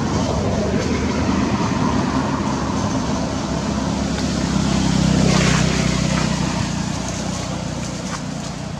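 A motor vehicle engine running nearby with a steady low hum and a noisy rush, growing louder to a peak about five seconds in and then fading.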